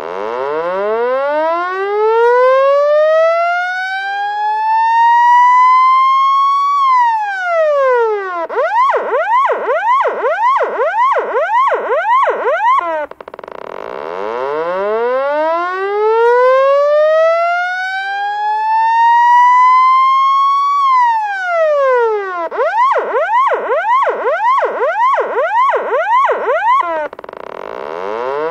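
Police siren in a repeating cycle: a slow wail rising over about six seconds and falling back, then a fast yelp sweeping up and down about twice a second for some four seconds. The pattern plays twice and begins again near the end.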